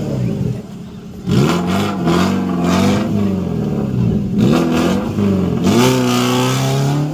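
Modified off-road 4x4's engine revving hard again and again, its pitch rising and falling with each blip of the throttle, after a brief drop about a second in.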